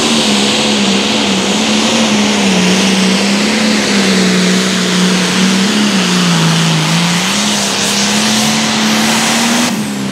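Turbocharged diesel engine of an orange AGCO Allis Limited Pro Stock pulling tractor running flat out under load as it drags the weight sled. The engine note wavers, sags briefly about two-thirds of the way through and comes back up, then breaks off suddenly near the end.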